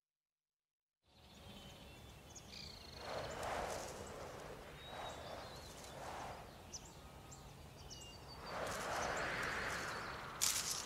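Quiet forest ambience in a cartoon soundtrack: soft gusts of wind swell and fade several times, the longest about two-thirds of the way through, with faint bird chirps. It starts about a second in, after silence, and there is a brief crackle near the end.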